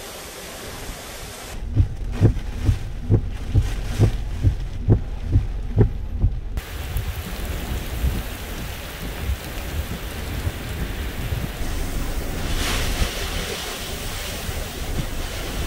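Hurricane wind and heavy rain hissing steadily on pavement, the rain band of a hurricane's outer core, with a stronger gust about thirteen seconds in. Earlier, for about five seconds, a run of muffled low thumps comes roughly two a second.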